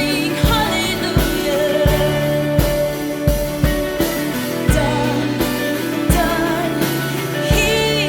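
A contemporary worship song: a singer's voice over a steady drum beat and sustained chords.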